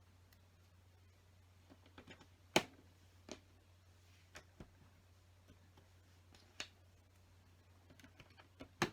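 Small plastic LEGO pieces clicking and tapping as they are handled and pressed onto the model: a handful of sharp, scattered clicks, the loudest about two and a half seconds in, over a low steady hum.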